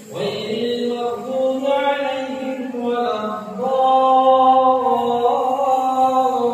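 A man's voice chanting Quran recitation during Tarawih prayer, in long drawn-out melodic phrases. There is a short break for breath at the very start.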